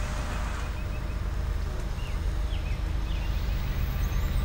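Low, steady rumble of a freight container train's cars rolling past on the track. A bird chirps a few times over it.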